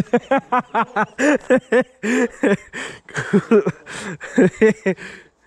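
A man laughing in a quick run of short, voiced bursts, then more broken laughter.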